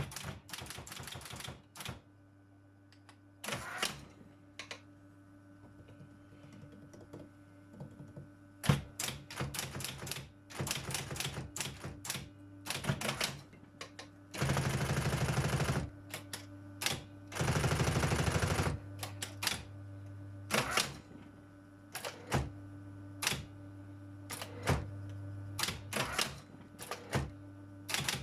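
Robotron 202 typewriter typing: irregular sharp keystrokes with pauses between. It has two stretches of about a second and a half each, roughly halfway through, where the strikes come in a rapid continuous run. A steady low hum lies underneath.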